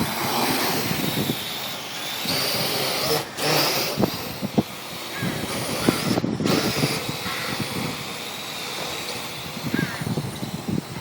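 Strong wind buffeting the microphone in gusts, with a small drone's motors and propellers whining thinly above it.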